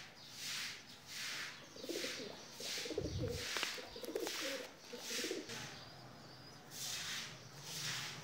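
Domestic pigeons cooing, a run of low wavering coos in the middle, over a regular hissing pulse that repeats about three times every two seconds. There is a dull low bump about three seconds in.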